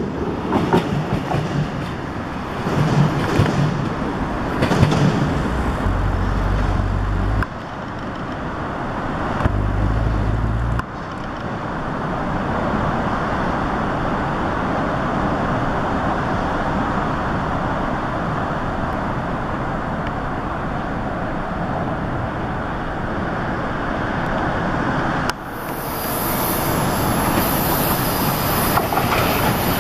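Metro-North commuter trains running past on the rails: steady rolling wheel-and-rail noise that changes abruptly a few times between passing trains. Two short spells of deep rumble come in the first ten seconds.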